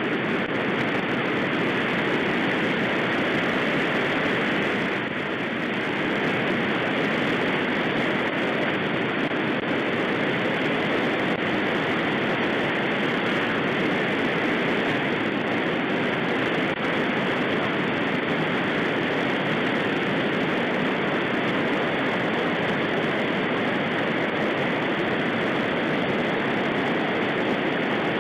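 Steady rushing of shallow river rapids, whitewater churning close around the wading angler.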